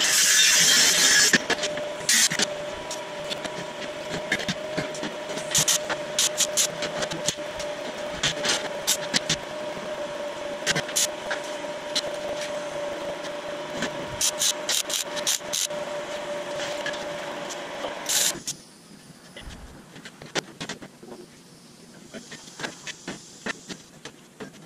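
A cordless angle grinder cutting steel, which stops about a second in. Then a steady hum with scattered metal clanks and taps as steel sheet panels are handled and fitted, going quieter with only occasional taps near the end.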